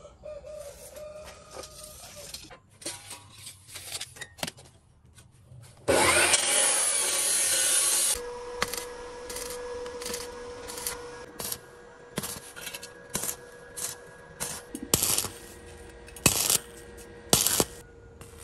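Arc welding a galvanized steel pipe: a few light knocks as the pipe is handled, then about six seconds in a loud burst of arc noise, followed by a crackling arc with frequent sharp pops over a steady whine.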